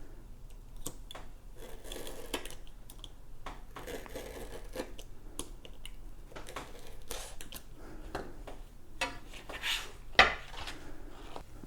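Hands working with Velcro strips and the unicycle's pads: scattered small clicks, rustling and rubbing, with one sharp knock about ten seconds in.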